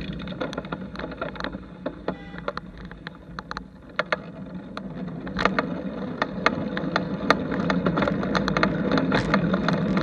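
Riding noise from a bicycle-mounted camera: a steady low rumble with frequent sharp clicks and rattles as the bike rolls over the road. It grows louder in the second half.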